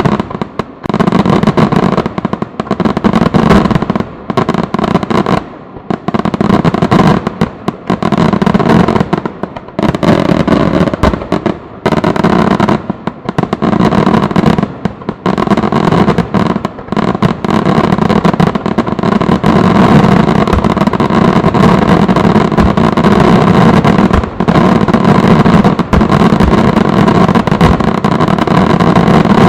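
Fireworks barrage: aerial shells bursting in rapid succession with brief lulls. From about two-thirds of the way in, the bursts run together into a near-continuous din.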